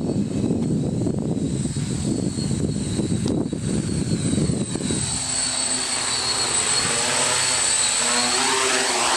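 HJ450 quadcopter's four Emax 2212 980KV brushless motors spinning 10x4.5 propellers: a steady high motor whine with a propeller buzz. In the second half the buzz rises in pitch and grows a little louder as the drone comes in close.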